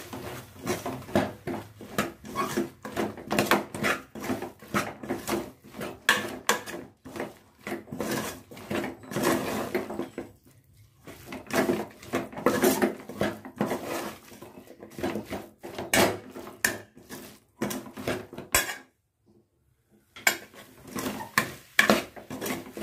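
Metal spoon stirring and scraping against the sides and bottom of a large aluminium pot, working spice powders into a thick tomato-and-vegetable mixture: quick, repeated scrapes and clinks. The stirring pauses briefly about ten seconds in and stops for about a second near the end.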